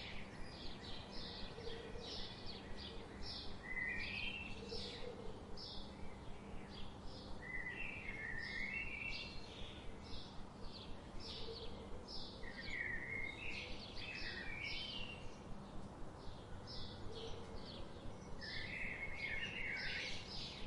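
Birds singing: a steady run of short high chirps, two or three a second, with a lower warbling phrase breaking in every few seconds, over a faint steady background hum.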